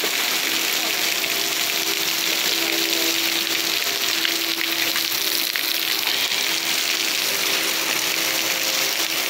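Heavy rain pouring steadily, with a tornado warning siren sounding faintly underneath as a long held tone.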